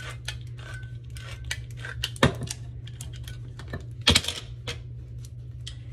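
Handheld crank can opener cutting around the lid of a tin can: a rapid run of small metallic clicks as the key is turned, with two louder clanks, about two seconds in and again about four seconds in.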